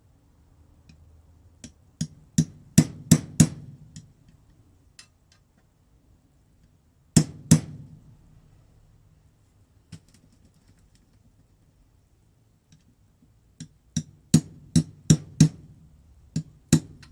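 Hammer blows on a socket used as a drift, knocking a new water-pump part into the Aprilia RX50 engine casing. The strikes are sharp and come in three runs: about six quick taps, then two hard blows, then about eight more near the end.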